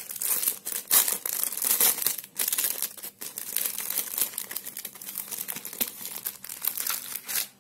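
Thin clear plastic wrapper crinkling and crackling in the hands as a bundle of makeup brushes is worked out of it, a dense run of sharp rustles that stops suddenly at the end.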